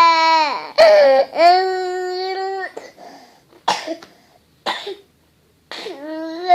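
Young child crying in long, high wails, broken by three short coughs in the second half before the crying starts up again near the end.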